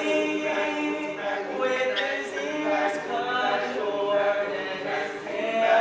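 Male a cappella group singing a song together, several voices holding chords in harmony with no instruments.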